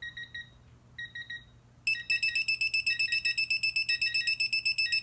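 Digital torque wrench's electronic beeper: two pairs of short beeps, then from about two seconds in a louder, rapid run of beeps, about nine a second. The rapid run is the alert that the set torque of 100 ft-lb has been reached on a counterclockwise pull.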